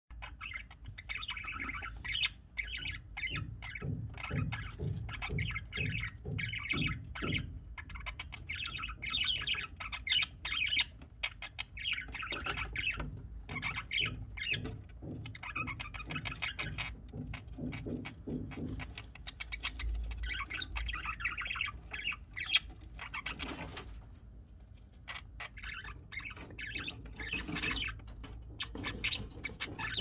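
Nestling budgerigars chirping in repeated bursts of about a second each, every couple of seconds, with scratching and tapping in the nest-box bedding as they shuffle about.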